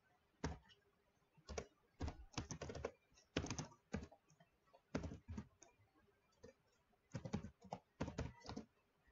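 Computer keyboard typing in short irregular bursts of keystrokes, with brief pauses between the bursts.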